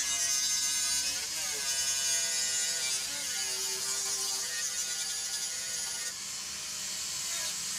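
Electric angle grinder running with its disc pressed against steel: a high motor whine over a hiss of grinding. The whine sags in pitch a couple of times as the disc is leaned into the metal, then picks back up.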